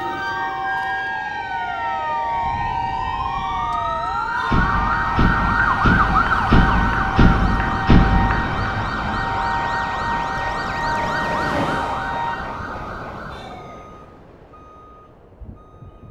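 Several sirens wailing at once, their pitches sliding down and back up and crossing each other over a steady high ringing tone. From about four seconds in, a series of heavy low thumps lands roughly once or twice a second, the loudest near the middle. Everything fades out a few seconds before the end.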